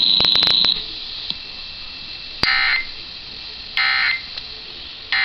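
Emergency Alert System end-of-message data signal: three short, identical buzzing bursts of digital tones about a second and a half apart, marking the end of the alert. A steady high whine and a few clicks cut off within the first second.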